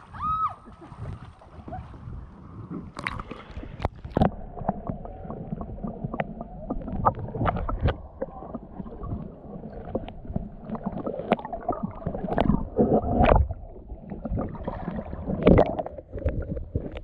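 Kayak being paddled on a creek: paddle strokes splashing and water gurgling along the hull, with irregular knocks throughout.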